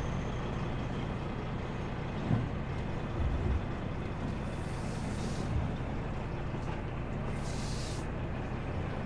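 Kenworth W900 semi truck's diesel engine running steadily at low speed, with two hisses of compressed air from its air brakes about four and seven seconds in, and a few low thumps.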